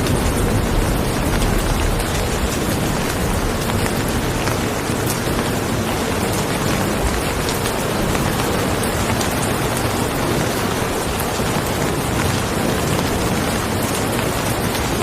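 Rain falling steadily: an even hiss with scattered sharper drop hits.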